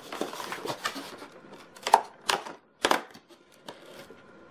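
Cardboard advent calendar door being forced open by hand: rustling and scraping of card, with three sharp cracks about two to three seconds in.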